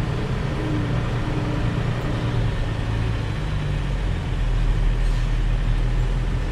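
Diesel engine of a heavy farm machine running steadily, heard from inside its cab, with the low engine note rising a little from about four seconds in.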